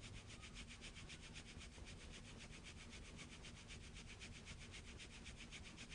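Faint, quick back-and-forth rubbing of a hand over kinesiology tape on the skin, several strokes a second, warming the tape to activate its glue.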